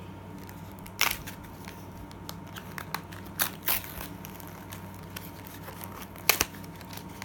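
Foil wrapper of a Pokémon booster pack crinkling and crackling as it is handled and picked at to tear it open, with a few sharp crackles, the loudest about six seconds in.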